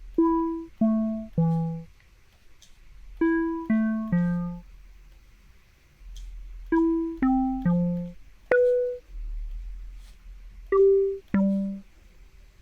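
Software synthesizer built in Max/MSP playing short triangle-wave notes through a resonant filter, each with a sharp attack and quick decay, like plucks. About a dozen notes come in groups of two to four, mostly stepping down in pitch.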